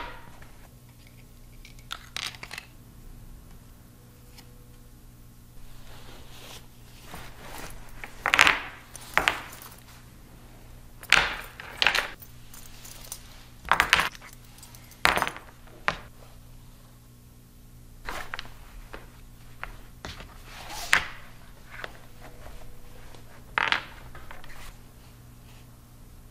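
Unboxing handling sounds: the metal clasps and clips of a leather apron harness clinking and clattering, mixed with fabric rustling, in scattered sudden bursts over a faint steady low hum.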